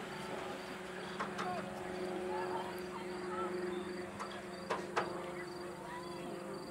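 Outdoor ambience of insects chirping in short, regular pulses, about three a second, over a steady low hum, with a few sharp knocks in the middle.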